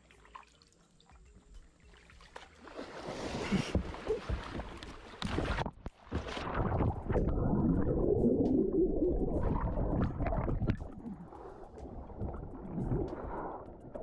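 Quiet kayak paddle strokes, then heavy splashing from about two and a half seconds in as an alligator rams the kayak and capsizes it. From about six seconds the sound turns muffled and low with the camera under the river water amid thrashing, and lighter splashing returns near the end as the paddler surfaces beside the kayak.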